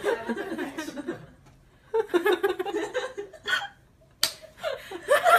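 A woman laughing hard in two bouts of rapid pulsing laughter with a short pause between them, then a sharp click about four seconds in.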